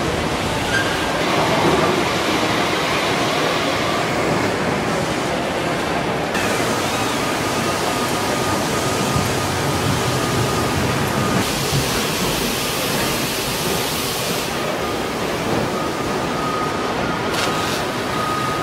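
Truck body-shop floor noise: a loud, steady wash of machinery and air noise whose character shifts abruptly several times. From about six seconds in it carries a thin steady whine.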